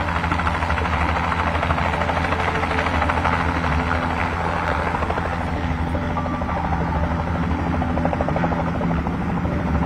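Light single-engine helicopter flying low near the ground. Its rotor gives a fast, steady chop over the engine noise, loud and unbroken.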